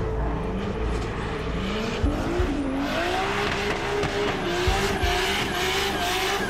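Drift car engine revving hard, its pitch rising and falling with the throttle, over steady tyre squeal as the car slides sideways, with a few low thumps.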